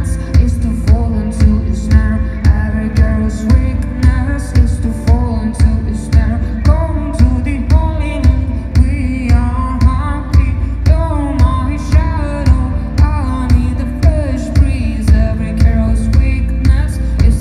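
Live pop band music played loud in a concert hall: a steady kick drum at about two beats a second under guitar, with a melody line weaving above.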